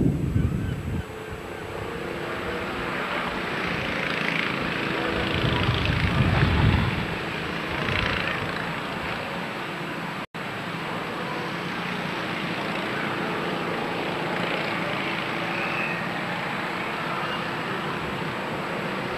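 Wind buffeting the camcorder's microphone in low gusts near the start and again about six seconds in, over a steady rushing outdoor noise. The sound cuts out for a moment about ten seconds in.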